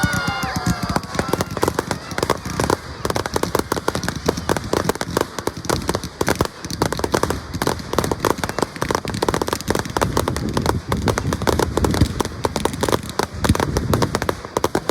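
Fireworks bursting in rapid succession, a dense run of crackling pops and bangs, many a second, that keeps up without a break.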